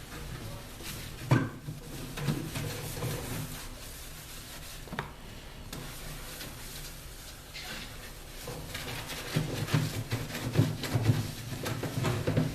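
Microfiber cloth being wiped over a microwave's outer casing: rubbing and handling noises, with a sharp knock about a second in, another around five seconds, and busier rubbing and knocking toward the end.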